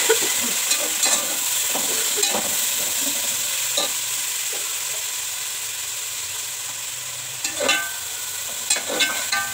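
Tomatoes just added to browned onions, sizzling in hot oil in a large metal pot, while a metal spatula stirs them, scraping and clinking against the pot. The sizzle slowly eases off, and a few louder scrapes come near the end.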